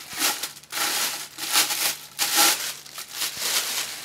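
Clear plastic wrapping crinkling as it is pulled off a vacuum cleaner handle, in several separate rustles.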